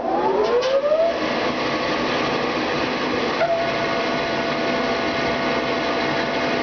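Shibaura KRTC-11A rotary surface grinder running, its 20-inch segmented wheel spinning with a steady, loud machine noise. A whine rises in pitch during the first second, and a steady tone joins about halfway through.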